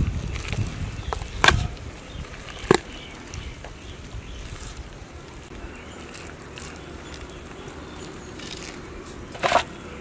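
A large fish being gutted by hand on a wooden stump: two sharp knocks early on, and near the end a short, louder wet thud as the entrails are dropped into a steel basin.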